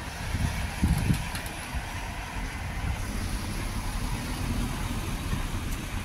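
Road traffic: a small car driving slowly past close by, heard as a low, uneven rumble that swells about a second in.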